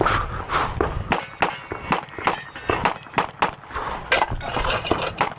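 A rapid string of 9mm pistol shots from a Glock 19, about three a second, with steel targets ringing from hits after some of them.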